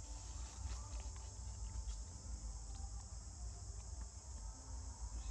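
Steady, high-pitched drone of an insect chorus, over a low rumble, with a few faint scattered ticks.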